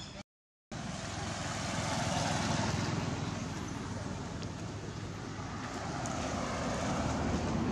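Steady rumble of passing motor traffic, swelling about two seconds in and again near the end, after the sound briefly drops out at the start.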